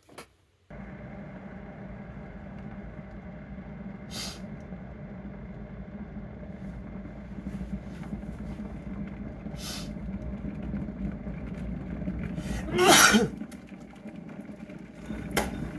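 A person sneezing once, loudly, about thirteen seconds in, over a steady low background hum. Two brief breathy sounds come earlier.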